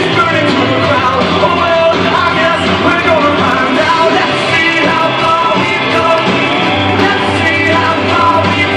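Loud music: a song with a singer and a band, played steadily.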